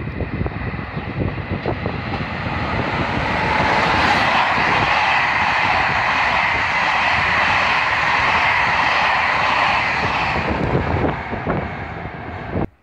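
Electric locomotive hauling a train of passenger coaches passing close by at speed: a rushing roar of wheels on rail that grows over the first few seconds, stays loud while the coaches go by, eases off, then cuts off abruptly near the end.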